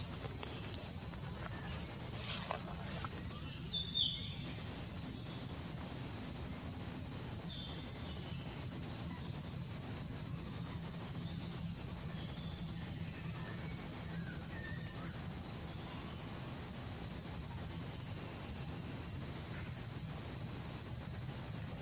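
Insects droning steadily at one high pitch, with a few short chirps over the drone, the loudest a falling chirp about three to four seconds in.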